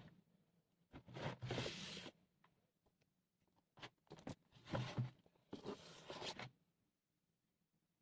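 Packaging of a vinyl record set being handled: rustling and scraping in four short bursts, with a few sharp clicks between.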